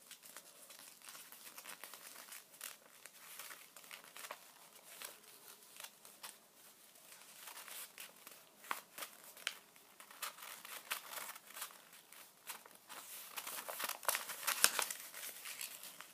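A sheet of paper rustling and crinkling as it is rolled tightly by hand into a thin tube, in many short irregular crackles, louder near the end.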